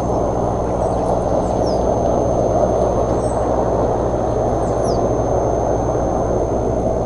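Steady rushing outdoor noise with a low hum and a constant thin high whine, over which small birds give faint high chirps several times, each a quick falling note.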